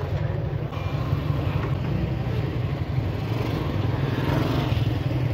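Motorcycle riding along at a steady pace: engine running under a heavy wind rumble on the rider's onboard microphone.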